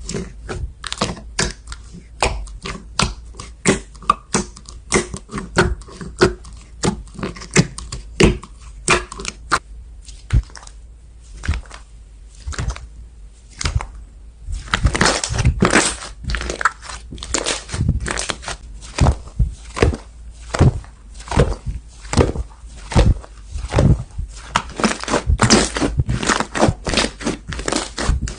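Slime being squeezed, poked and stretched by hand, making a steady run of sharp clicks and pops, two or three a second, growing louder and busier about halfway through.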